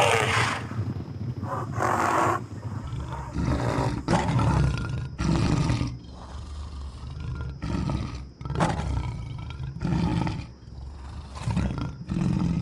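Lions roaring and snarling in a fight, a string of about ten short bursts, roughly one every second or so.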